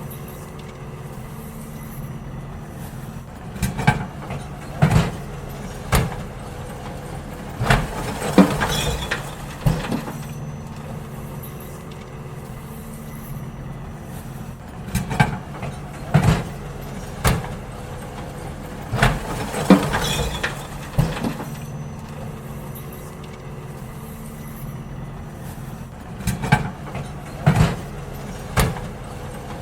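Garbage truck's diesel engine running with a steady hum, while bins are emptied into it with clusters of loud bangs and clatters every few seconds.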